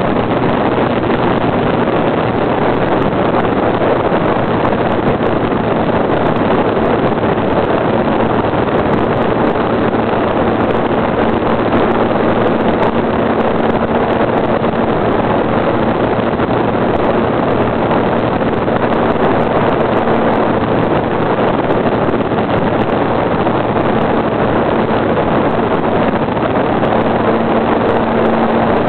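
Onboard sound of a Hangar 9 radio-controlled model airplane in flight: its motor running at a steady pitch under a loud rush of wind on the microphone.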